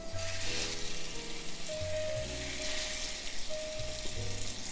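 Seasoned lamb loin chops frying in hot butter in a cast-iron skillet on medium-high heat, sizzling steadily as the chops are laid into the pan.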